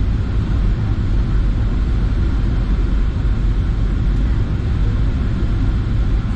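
Steady cabin noise inside a Boeing 737-800 on approach: engine and airflow drone with a strong low rumble, unchanging throughout.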